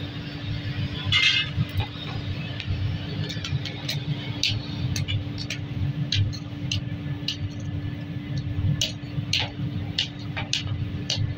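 Hammer striking small cast brass tap parts on a pile, sharp metallic clinks at an uneven pace of a few a second. Under them a steady low rumble and hum.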